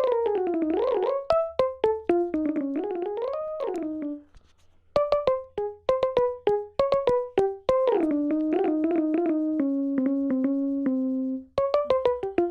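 GarageBand's Reversing Mood Keys synth-piano patch being played: a run of short keyboard notes with sharp attacks over held tones that slide down and up in pitch. There is a short pause about four seconds in, and a long low note is held near the end.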